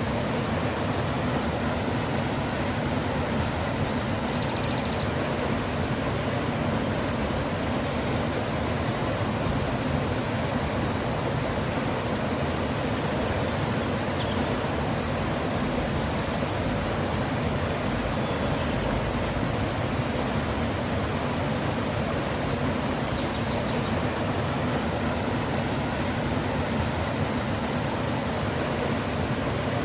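Mountain river flowing, a steady rushing of water. Over it, a high, thin chirp repeats regularly about twice a second and stops near the end.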